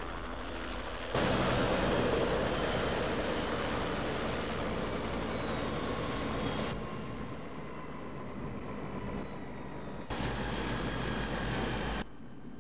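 Turbine helicopter running outside, a steady engine rush with a high whine that falls slowly in pitch. The level jumps up or down abruptly several times, about a second in, in the middle and near the end.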